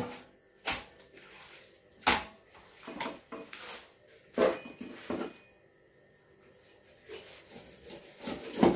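Kitchen handling sounds: a handful of separate knocks and clatters of utensils and dishes on wood, about a second or so apart, with a quieter stretch past the middle.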